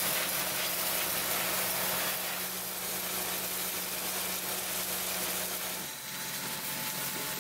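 Concrete pump truck's engine running steadily while concrete is pumped through the hose into the foundation formwork. Its hum shifts a little lower about six seconds in.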